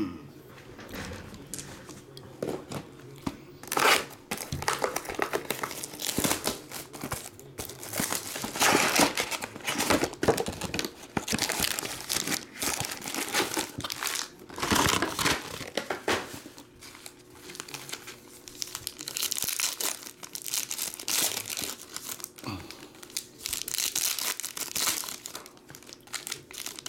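Foil trading-card pack wrappers crinkling and tearing as packs are ripped open, with packs and cards shuffled and handled in between: irregular rustling and ripping.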